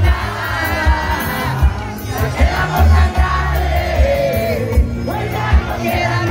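Live vallenato band playing loudly, with heavy bass and drum hits under a sung melody, and a crowd cheering and singing along close around the microphone.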